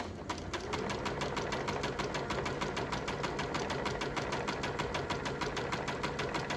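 Domestic electric sewing machine stitching a zigzag seam through knit ribbing and sweatshirt fleece: the motor hums up to speed over the first second, then the needle runs a steady, even clatter of about nine stitches a second.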